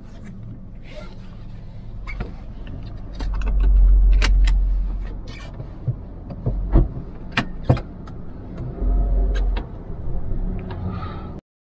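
Cabin sound of a Honda Brio moving off slowly: a steady low engine hum, two longer loud low rumbles, and a scatter of sharp clicks and knocks from inside the car. The sound cuts off suddenly near the end.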